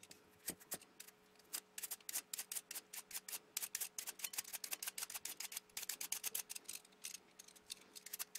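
Toothed julienne blade of a vegetable peeler shaving a raw carrot into thin strips: quick, crisp scraping strokes. There are a few in the first second or so, then several a second.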